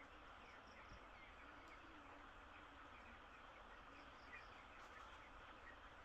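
Faint chorus of broiler chicks peeping: many short, high chirps scattered over a steady background hiss.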